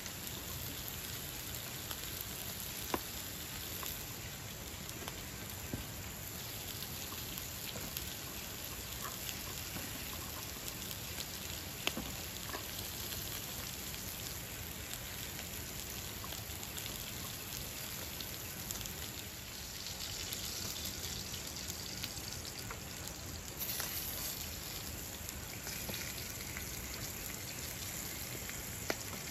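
Steady hiss of a shallow stream running over rocks, mixed with meat sizzling in a frying pan on a portable gas stove, and a few sharp knife taps on a plastic cutting board.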